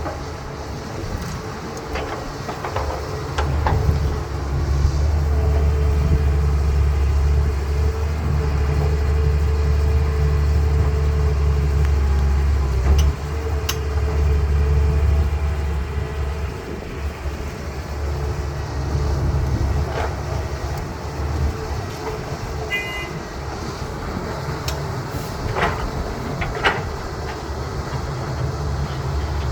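CAT 320B excavator's diesel engine working, its low drone growing louder for several seconds as it takes load, then easing off suddenly about halfway through. A few sharp knocks sound scattered through.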